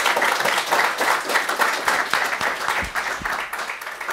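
Audience applauding: dense, many-handed clapping that eases slightly near the end.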